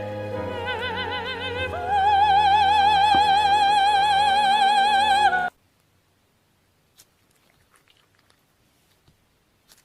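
Soprano singing operatically with wide vibrato, rising about two seconds in to a long held high note that cuts off abruptly partway through; only a few faint ticks follow.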